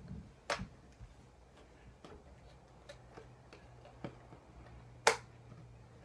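Small clicks and taps of a plastic toy and its packaging being handled, with two sharp snaps: one about half a second in and one near the end.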